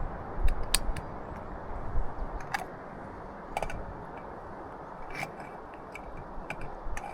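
Scattered light clicks and knocks of camp cooking gear being handled while preparing beef for frying, irregularly spaced over a steady low hiss.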